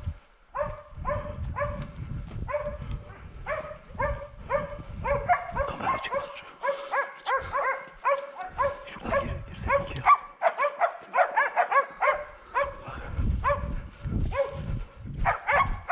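Hunting hounds barking in the brush on a wild boar: at first a single dog barking about two or three times a second, then several dogs barking together from about five seconds in.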